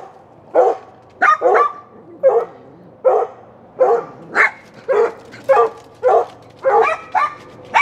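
Dogs barking over and over, short sharp barks about two a second with no let-up.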